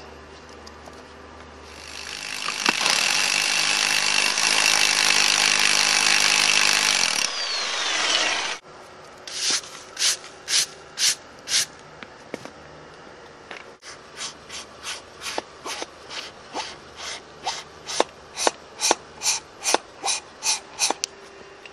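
Electric hammer drill running loud and steady as it bores into stone for about five seconds, then winding down with a falling whine. Then a run of short swishing strokes, about two a second, as the stone dust is cleared from the drilled hole.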